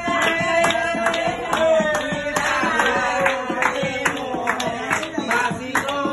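A song with singing over a steady beat, with hands clapping along.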